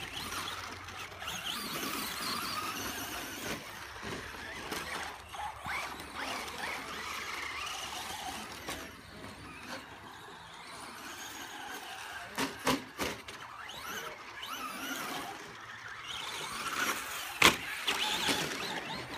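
Radio-controlled toy cars racing, their small motors whining and rising and falling in pitch with the throttle. There are a couple of sharp knocks about twelve seconds in and a louder one near the end, like the cars hitting something.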